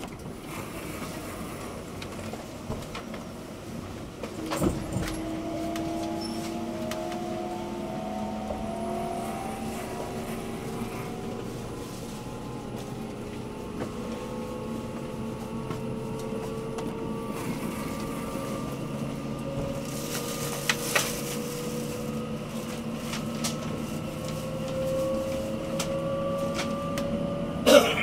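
Inside a JR 683-series electric train running at speed: steady running rumble with several faint electric whines slowly rising in pitch. A few sharp knocks, one about five seconds in and another near the end.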